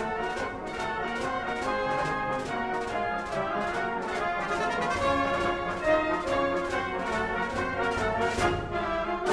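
Brass band playing circus music with a steady beat.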